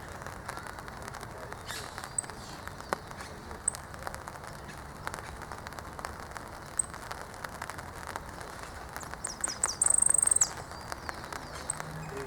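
Outdoor ambience with birds chirping: a few short high chirps and, about ten seconds in, a loud, fast high-pitched trill lasting about half a second, over scattered light clicks and rustling.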